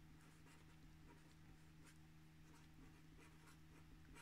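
Faint scratching of a pen writing on paper in short, irregular strokes, over a low steady hum.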